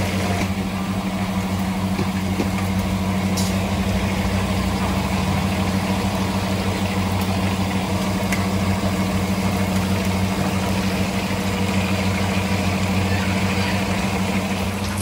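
Chicken pieces deep-frying in a wok of hot oil, the oil bubbling and sizzling steadily, over a steady low mechanical hum.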